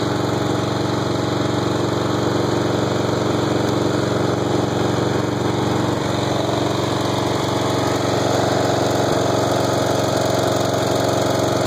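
Snapper riding mower's 12 hp Briggs & Stratton I/C engine running steadily.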